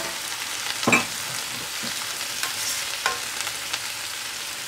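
Chopped cabbage and celery sizzling steadily in a hot oiled pot with chicken stock just poured in. A spatula stirs through the vegetables, clacking against the pot a few times, loudest about a second in.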